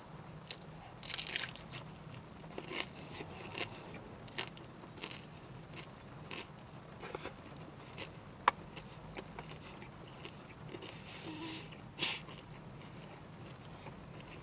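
A person biting into and chewing a Hungry Jack's double Angry Whopper close to the microphone. The mouth sounds come in irregular short bursts, the sharpest a click about eight and a half seconds in, over a steady low hum.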